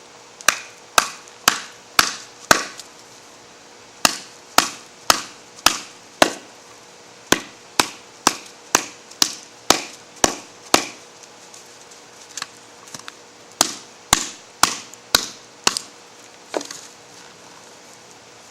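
Glock field knife being batoned through a large piece of wet firewood: sharp wooden knocks on the blade's spine, about two a second in runs of five to eight strokes with short pauses between, each with a brief ring.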